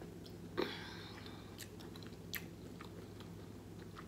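Faint close-miked chewing and mouth clicks from eating stuffed bell pepper, over a low steady hum. About half a second in there is a brief squeaky scrape as a fork digs into the pepper.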